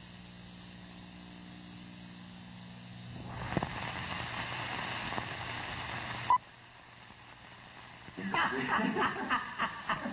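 A low steady hum for about three seconds, then a few seconds of rushing noise with a pop that cuts off suddenly with a click, then a voice speaking near the end.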